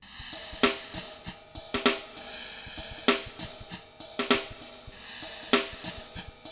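Music: a drum kit playing a steady beat, with cymbal crashes about every 1.2 seconds and light hi-hat ticks between them.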